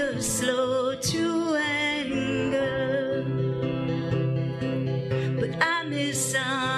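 Worship music: a voice singing over guitar accompaniment with sustained low notes.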